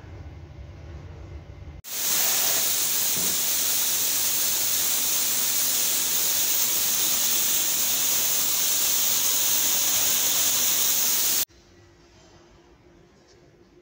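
Low rumble of a loaded kiln car moving through a tunnel kiln, then from about two seconds in a loud, steady hiss of a compressed-air spray gun glazing ceramic toilet bodies, which cuts off abruptly near the end.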